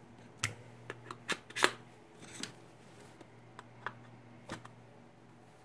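Screwdrivers being slotted into their holder rack: a few scattered light clicks and knocks as the handles and shafts meet the holder, the loudest about one and a half seconds in.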